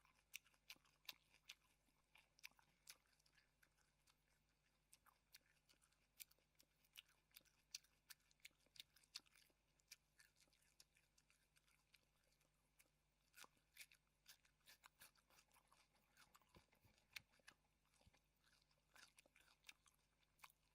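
Raw red bell pepper being chewed: faint, irregular crunches and mouth clicks throughout.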